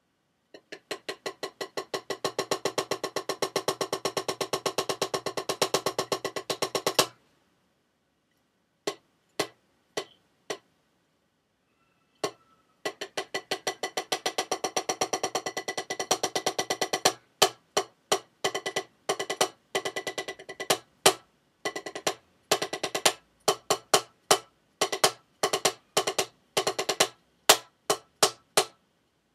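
One drumstick struck on a drum practice pad: a fast, even run of strokes for about seven seconds, a few single taps, then another fast run, and finally quicker strokes with louder accents among quieter ones.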